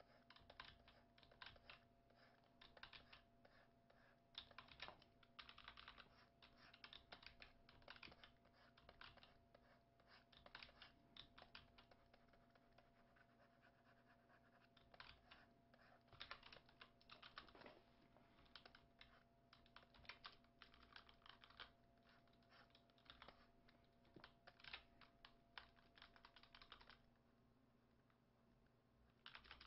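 Faint, irregular clicking and tapping of computer input devices, the stylus and keys used while painting digitally, in quick clusters that stop near the end. A low steady hum runs underneath.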